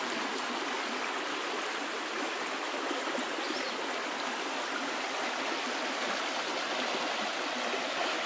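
Creek water flowing steadily, an even, unbroken rush of water.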